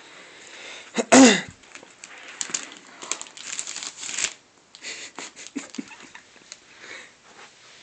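Shiny gift-wrapping paper crinkling and a roll of masking tape being pulled and torn while a wrapped box is taped shut, with a series of scratchy rips and rustles. About a second in, a short loud cry falling in pitch cuts in.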